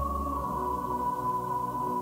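Commercial background music: held, sustained tones whose pitch sinks slowly, over a low drone that drops away about half a second in.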